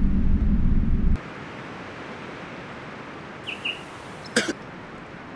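Outdoor-style ambience: a low rumble stops abruptly about a second in, leaving a steady hiss. Two short chirps come near the middle, and a sharp click follows a little later.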